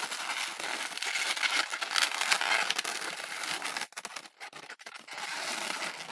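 260 latex modelling balloon being twisted into a string of small bubbles by hand: continuous scratchy rubbing of rubber on rubber with small clicks, easing into a few brief pauses about four seconds in.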